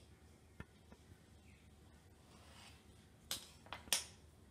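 Small kitchen knife on a hard countertop: a short click about half a second in, a faint scrape of the blade through thin gyoza dough, then two sharp clicks near the end, the second the loudest, as the knife is knocked and set down on the counter.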